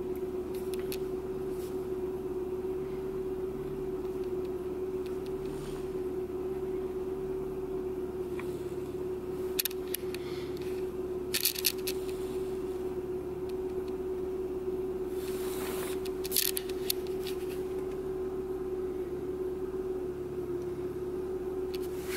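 Renault Clio 3 petrol-or-diesel engine idling steadily while still cold after a −9 °C cold start, heard from inside the cabin as an even hum. A few brief rustles and clicks come around the middle.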